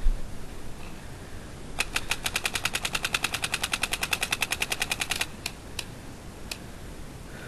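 Paintball marker firing a rapid string of shots, about a dozen a second for some three seconds, followed by three single shots.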